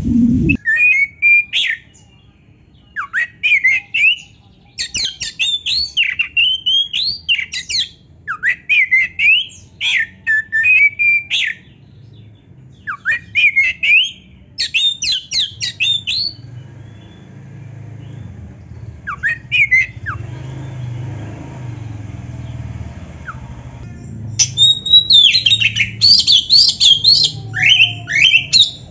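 Oriental magpie-robin (kacer) singing loud song phrases of quick whistles, rising and falling sweeps and harsh scratchy notes, in bursts every second or two. The song pauses for a few seconds in the middle, with a faint low hum under it, then comes back as a dense run near the end.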